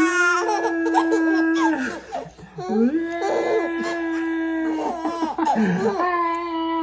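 Baby laughing with delight: three long, high-pitched squealing laughs, each held about two seconds, with short breaks between them.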